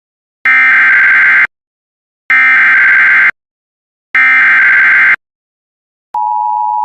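Emergency Alert System SAME header: three one-second bursts of digital data tones about two seconds apart, which encode the alert's type, area and time. Near the end the steady EAS attention signal begins, the two-tone alert sounded before the voice warning.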